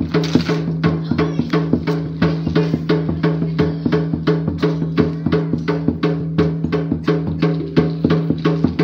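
Topeng monyet street-show percussion: a drum beaten in a fast, even rhythm of about four to five strokes a second, over a steady low ringing tone that holds throughout.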